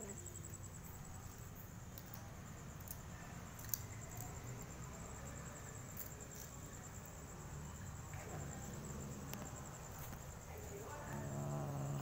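Crickets trilling steadily at a high pitch, with a sharp click about four seconds in and a faint voice near the end.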